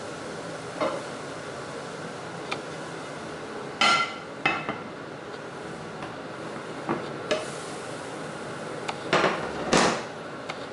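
Kitchen clatter: about eight separate knocks and clinks of utensils against dishes and pans, the loudest two near the end, over a steady hum.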